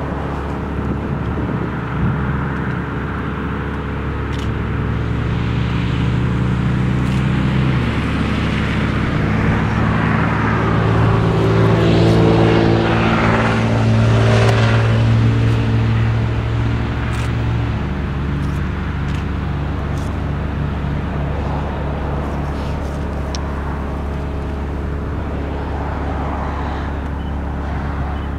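Diesel-electric freight locomotives, a GE B23-7 and an EMD GP9, working as the train approaches. The engines run with a steady throbbing note that shifts about eight seconds in, is loudest midway, and drops back about eighteen seconds in.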